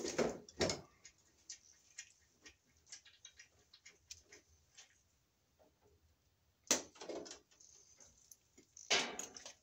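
Electrical wire and hand tools being handled at a breaker panel: a run of small clicks and rustles, then two sharp snaps about two seconds apart near the end from red-handled wire cutters or strippers working the wire.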